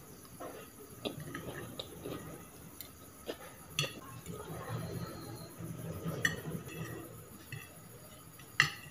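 Metal fork and spoon clinking and scraping against a ceramic plate while noodles are twirled up, several sharp ringing clinks, the loudest near the end.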